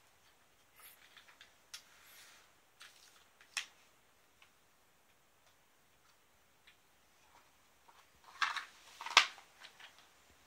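A cat moving about under a low table against a cardboard box: faint scattered ticks and scratches, then a louder scraping rustle and a sharp knock about eight to nine seconds in.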